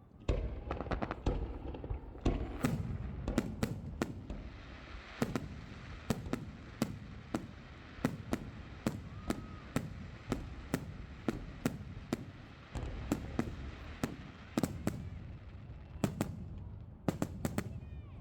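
Aerial firework shells bursting in quick succession: a steady barrage of sharp bangs, often two or three a second, with a low rumble carrying on between them.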